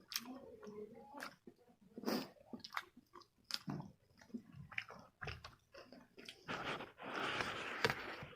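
Close-up chewing and biting of fried chicken pakora: irregular crisp crunches and wet mouth clicks, with a louder, denser spell of crunching near the end.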